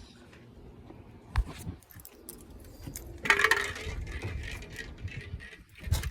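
Metal tools clinking and knocking while being handled. One sharp knock comes about a second and a half in, then a longer stretch of scraping and rattling starts about three seconds in.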